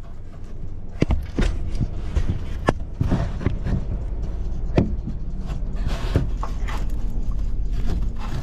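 Irregular clicks and knocks from hands and tools working on the underside of a car, over a steady low hum.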